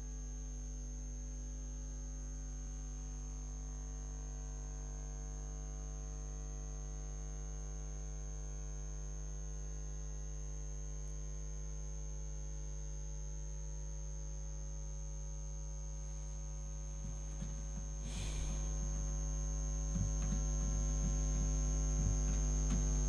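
Steady electrical mains hum with a faint high whine above it. It gets louder about eighteen seconds in, with a few faint ticks after that.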